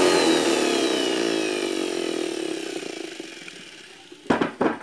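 Small electric hand blower's motor and impeller coasting down after a short run, the whine falling steadily in pitch and fading. Just after four seconds comes a short burst of rubbing or knocking as it slows, a noise that should not be there.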